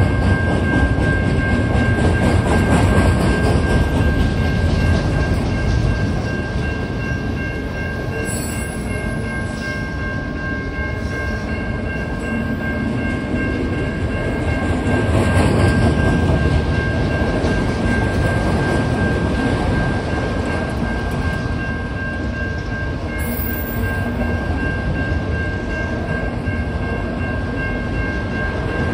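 Rumble of a CN autorack freight train's steel wheels on the rails as the cars roll steadily past, with a steady high-pitched tone running over it.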